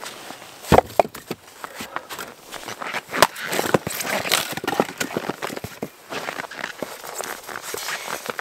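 Firewood logs knocking and clunking together as they are pulled from a wood box and gathered, mixed with footsteps crunching on packed snow. The sharpest knocks come about a second in and again after three seconds.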